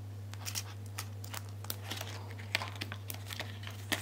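Crinkling and rustling of polymer banknotes being handled and tucked into a ring-binder cash envelope, a quick run of small crisp rustles and clicks over a steady low hum.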